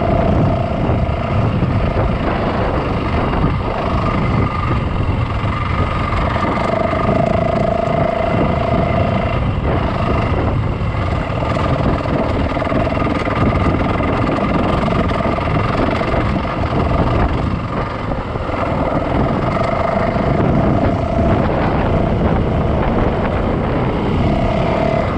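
Yamaha dirt bike running as it is ridden along a trail, with a continuous rough rumble. A steady whine comes and goes over it several times.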